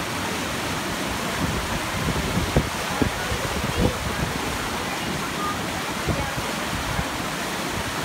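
Rushing white water of a rapids ride channel: a steady hiss of churning water pouring over and around the rocks.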